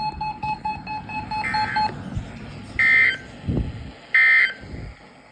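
NOAA Weather Radio EAS end-of-message data bursts: three short bursts of digital screeching, about a second and a half apart, the first fainter than the other two, marking the end of the Required Weekly Test. A couple of dull thumps fall between them.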